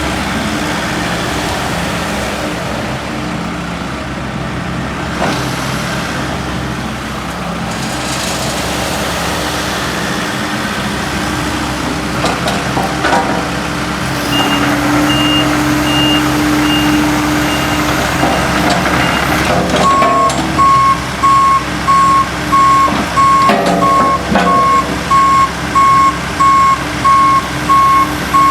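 Takeuchi TB260 mini excavator's diesel engine running under working load. From about twenty seconds in, its travel alarm beeps steadily about once a second as the machine tracks.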